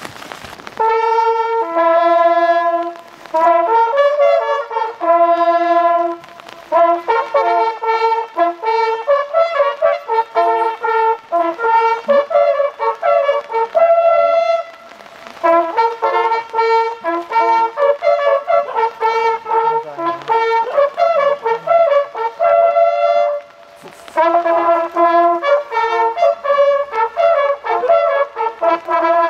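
A group of hunting horns, small coiled brass Fürst-Pless horns, playing a fanfare together in several-part harmony. The notes are short and steady, grouped into phrases with brief pauses between them.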